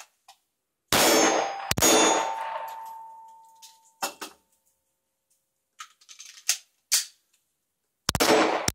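Handgun shots with steel targets ringing: two shots about a second in, then a single steady ringing tone that dies away over about two seconds, another report around four seconds, a few faint knocks, and a rapid string of shots starting near the end.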